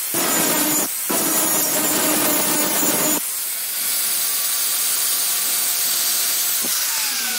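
Angle grinder with a flap disc grinding a steel rod, a dense abrasive rasp over the motor's steady whine. About three seconds in the disc comes off the work and the grinder runs free with a lighter, higher hiss, and near the end the motor's pitch falls as it winds down.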